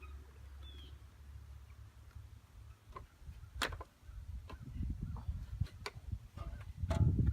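A few sharp clicks and taps, the loudest about halfway in, over a low rumble that builds through the second half and is loudest near the end.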